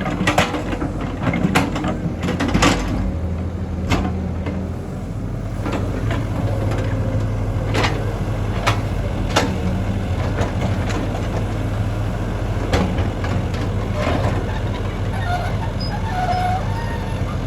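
Excavator's diesel engine running steadily, its pitch stepping up slightly about five seconds in, with repeated sharp metallic clanks and knocks from the machine at work.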